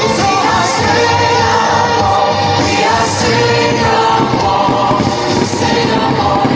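Music with a choir singing, steady and loud.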